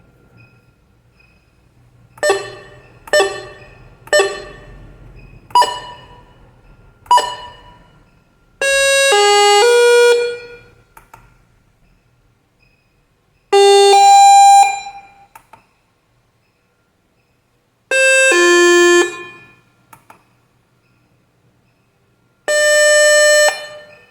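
Queue-number calling panel playing its call-alert chimes one after another. First come five single dings that die away, about a second apart. Then come three short electronic chime tunes of a few notes each and a single held tone, with pauses of a few seconds between them.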